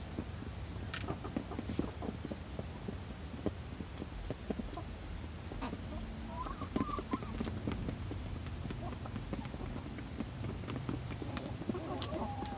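A flock of Barred Rock and Australorp hens pecking feed from a shared pan: a busy, irregular patter of beak taps, with a couple of soft hen calls, about six seconds in and near the end.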